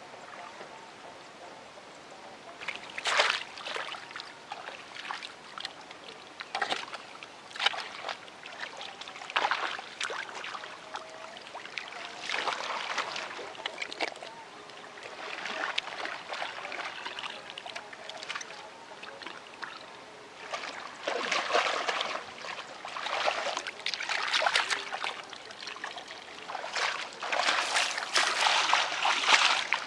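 Hands and feet splashing and squelching in shallow muddy water at a rice-field bank: irregular wet splashes that come thicker and louder near the end.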